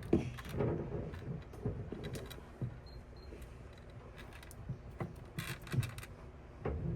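Scattered small clicks, knocks and light rattles of objects and tools being handled, with a brief clatter about five and a half seconds in.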